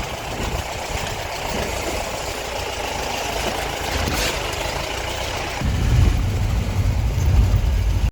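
A vehicle running, with engine and road noise and a low rumble that grows louder about six seconds in.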